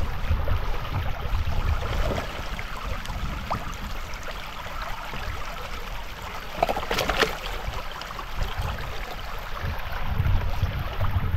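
Shallow stream running over rocks, with water splashing and sloshing as stones are lifted and shifted by hand in the current. The loudest splash comes about seven seconds in.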